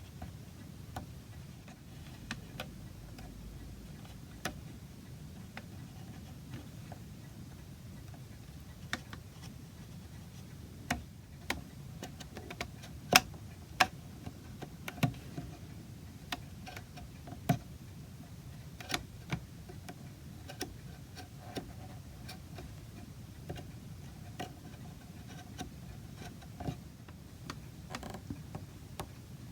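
Hand carving tools cutting into oak: irregular sharp clicks and taps, most frequent and loudest in the middle stretch, over a steady low background hum.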